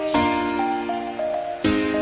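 Background music: sustained chords changing about once a second, with a light melody of short notes stepping over them.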